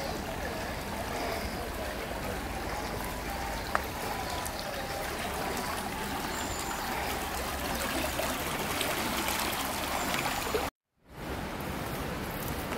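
Water rushing steadily along the open concrete channel of the Nanzenji aqueduct, with one sharp click about four seconds in. The sound cuts out for a moment near the end.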